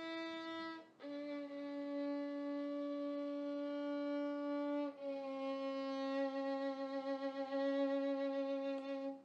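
Music: a solo bowed string instrument plays three long held notes, each a little lower than the one before, the last with a wavering vibrato, and stops near the end.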